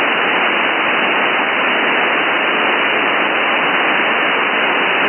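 Steady radio static hiss from a receiver tuned to 27.320 MHz with no signal on the channel yet.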